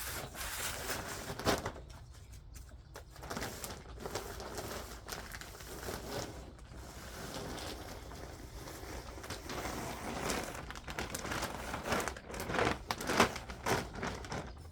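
Plastic compost sack rustling and crinkling irregularly as it is handled, with a few sharper knocks.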